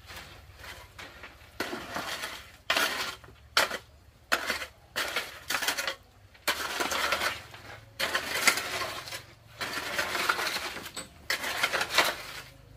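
Metal hoe blade pushing and dragging wet concrete across a floor: a series of gritty scrapes, some short and some drawn out for a second or two.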